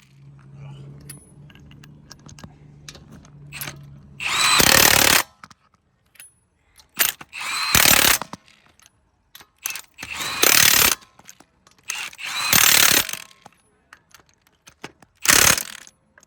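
Power tool run in short bursts of about half a second to a second, about eight times, with small clicks between them. A faint low steady hum sits under the first four seconds.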